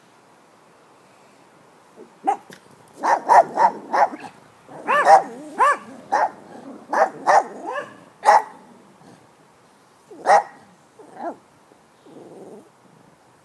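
A dog barking: a quick run of about a dozen short, loud barks, then two more spaced apart near the end.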